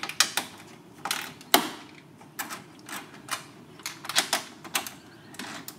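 Ratchet wrench with an 8 mm socket clicking in short irregular runs as it loosens a tail light mounting bolt, with one sharper knock about a second and a half in.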